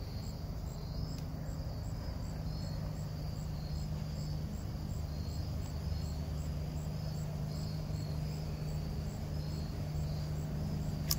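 Crickets chirping steadily, short even chirps about two a second, over a low steady hum. A single sharp click near the end.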